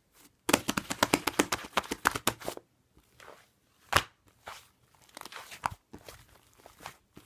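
Fluffy cream-textured slime being squeezed and poked by hand, giving a rapid run of small popping clicks and crackles for about two seconds, one sharp pop near the middle, then sparser clicks.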